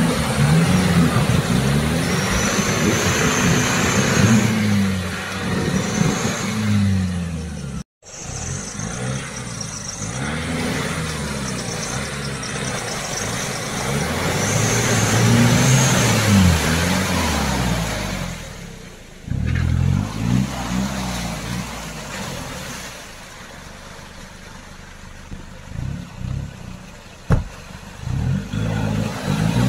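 Nissan Patrol Y61's ZD30 four-cylinder turbodiesel revving up and down over and over, with the hiss of spinning mud tyres throwing mud and water. For a few seconds near the end the engine drops to a quieter, steadier run, then revs again.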